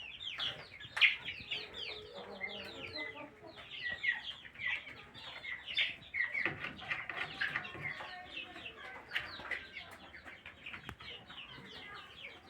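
A flock of chickens calling all at once: a dense, continuous stream of many short, high, overlapping calls that fall in pitch.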